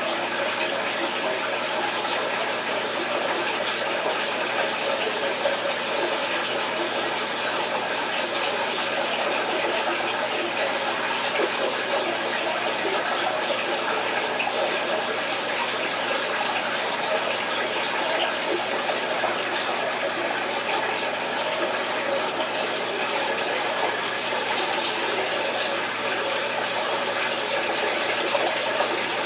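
Steady running and trickling water of an aquarium's circulation, an even hiss that does not change.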